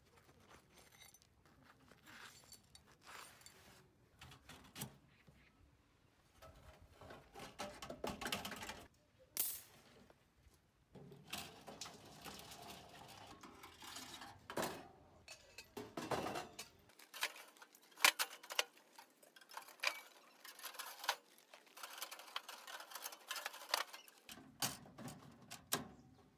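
Homemade sheet-metal can stove being handled and folded up: scattered light metal clinks, scrapes and knocks as its legs and panels are moved.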